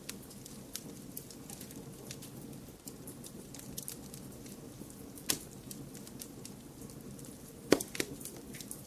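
Wood fire crackling over a steady low rumble of noise, with scattered small clicks and a few louder pops, the sharpest about five seconds in and a quick pair near the end.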